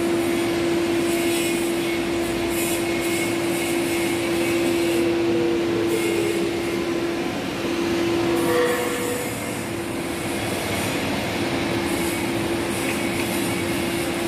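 Steady machine hum: one constant mid-pitched tone over a noisy drone, with a short higher tone joining about halfway through.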